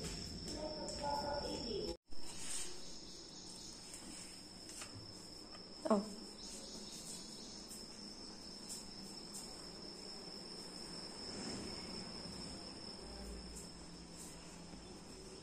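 Faint, steady high-pitched trill of crickets, with a brief falling sound about six seconds in.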